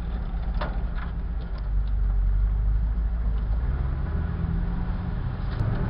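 A 4x4's engine running as it drives along a rough dirt trail, heard from inside the vehicle as a steady low rumble. A couple of sharp knocks come about half a second and a second in.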